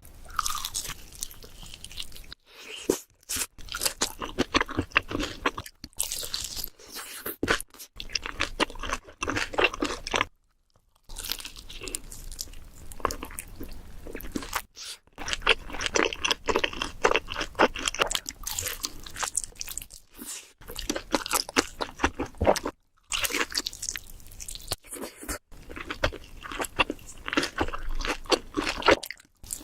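Close-miked eating ASMR: crunching bites and chewing, a dense irregular run of crisp crackles, broken twice by a brief moment of silence.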